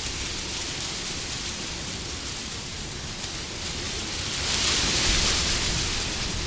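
Wind blowing in gusts, a rushing noise that swells to its strongest about five seconds in and then eases off.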